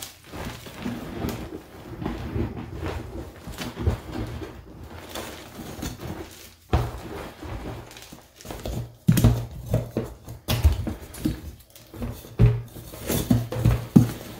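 Hands crunching and sifting through crushed gym chalk, a soft, continuous gritty crunch. From the middle on there are sharper, louder crunches and knocks as whole chalk blocks are pressed and broken into the crumbled chalk.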